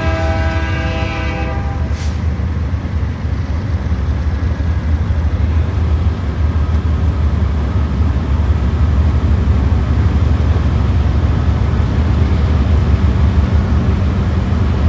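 Train horn sounding and cutting off about a second and a half in, then a single sharp click, then the train's steady low rumble.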